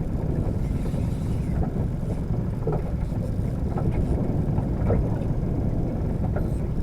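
Steady low rumble of wind and water noise on a small fishing boat, with a few faint ticks.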